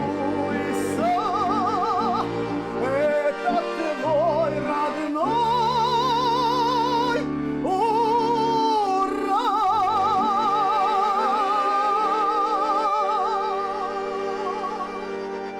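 A song in operatic style: a singer with wide vibrato over sustained accompaniment, ending on a long held high note that slowly fades near the end.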